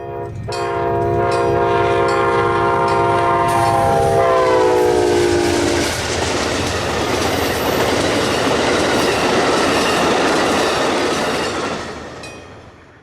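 A passing train: its horn sounds a steady chord of several notes for about four seconds, the pitch sagging as it goes by, then the rushing rumble of the train passing, fading away near the end.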